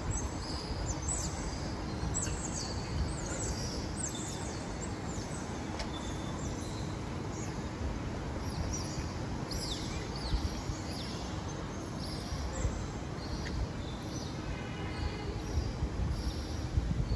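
Steady low background rumble with many short, high, falling chirps scattered through it.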